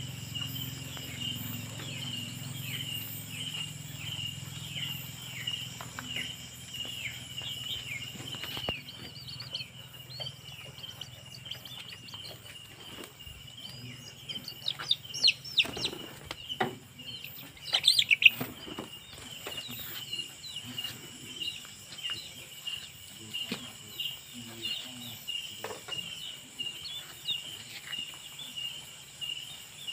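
Chickens giving short downward chirps and pecking at the ground, over a steady chirring of night insects. The loudest chirps and sharp pecks come around the middle.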